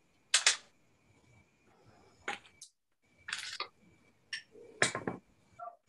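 Faint, scattered short scratches of pencil strokes on drawing paper, a handful of separate strokes, with a faint steady high whine coming and going underneath.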